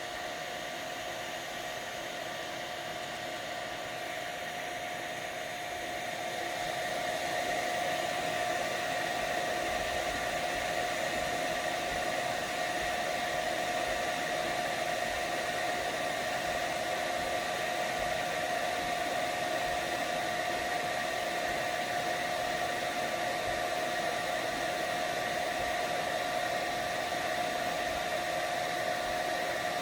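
3D printer running during a print: a steady fan whir with a constant whine, getting louder about six to eight seconds in and then holding steady.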